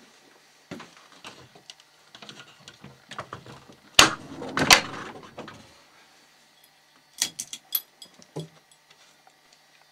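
Knocks and clicks of things being handled in a clothes closet. Two loud knocks come about four seconds in, with a short clatter after them, and a quick run of sharp clicks follows near the end.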